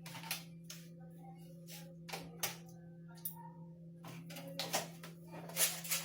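Someone eating: a scattered series of short clicks and taps, over a steady low hum, with the strongest tap near the end.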